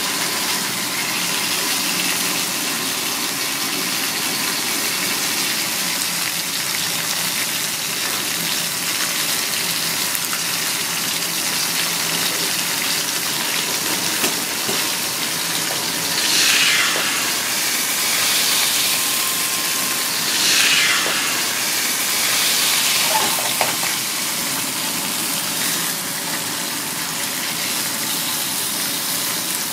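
Pieces of spotted knifejaw frying in hot oil in a wok, sizzling steadily, with two brief louder swells of sizzle about halfway through.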